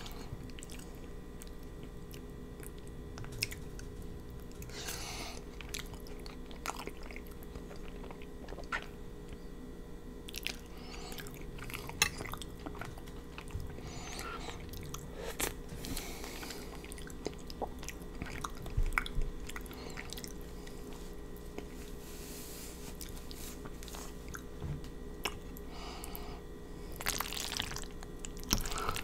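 Close-miked chewing and wet mouth sounds of a person eating creamy fettuccine noodles, with scattered sharp clicks of a metal fork against a glass baking dish. A low steady hum runs underneath.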